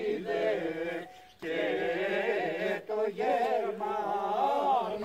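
Voices singing a traditional Greek folk dance song unaccompanied, in long held phrases with two short breaks, about a second in and about three seconds in.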